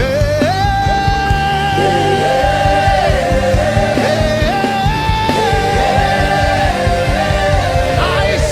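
Live gospel worship music: a singer holding long, drawn-out notes over band accompaniment.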